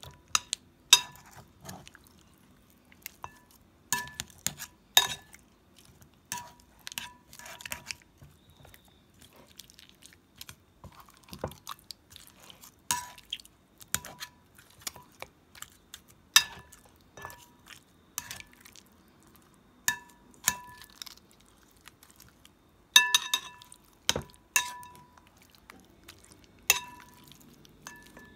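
Raw pork chops being mixed by hand in marinade in a cut-glass bowl: wet squishing of the meat, with irregular sharp clinks as the chops knock against the glass, many ringing briefly.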